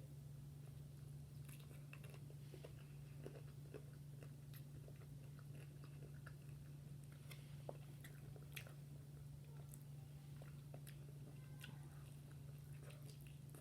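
Faint, close-miked chewing and biting of KFC fried chicken: scattered small wet mouth clicks and light crunches. A steady low hum runs underneath.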